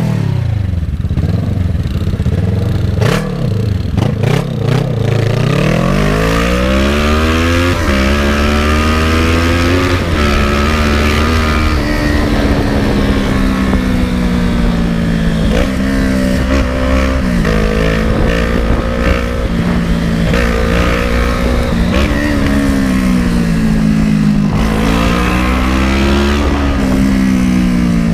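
Kawasaki ER-6n's 650 cc parallel-twin engine under way: the revs repeatedly climb and then drop, as when it accelerates and shifts gear, with some easing off and picking up again.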